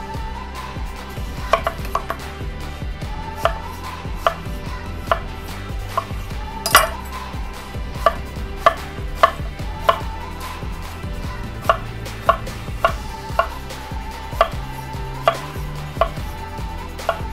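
Chef's knife dicing an eggplant on a wooden cutting board: the blade goes through the flesh and strikes the board in sharp, uneven knocks, roughly one a second, with a louder strike about seven seconds in.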